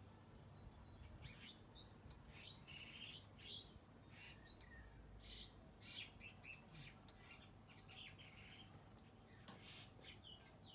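Faint birdsong: many short chirps and tweets from several small birds, over a faint steady low hum.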